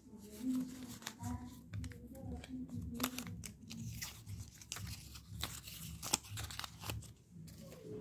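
Paper rustling and crinkling in the hands, with many sharp crackles, as a small bundle of cut-out paper circles is flexed and handled.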